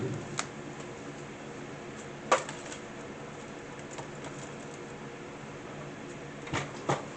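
Quiet room tone: a steady low hum with a handful of short, soft clicks and taps spread through it.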